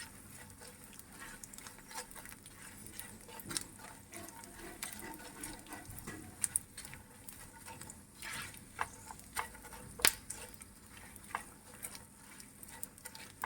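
Gond (edible gum) frying in hot ghee in a pan, puffing up: faint sizzling with scattered small crackles and clicks. One sharper click comes about ten seconds in.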